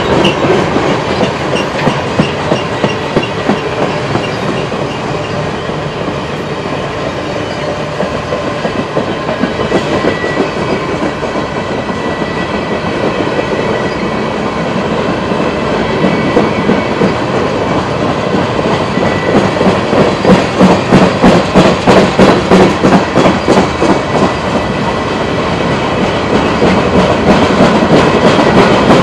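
Freight train of loaded flatcars rolling past, its wheels clicking rhythmically over the rail joints with a steady clickety-clack over continuous rolling noise. The clacking is loudest about two-thirds of the way through.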